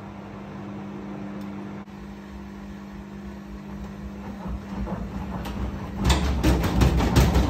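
Beko WRE6512BWW front-loading washing machine humming steadily as the drum turns, then speeding up into a spin burst about four seconds in. From about six seconds the machine jumps on the spin burst, knocking and banging rapidly with a heavy rumble.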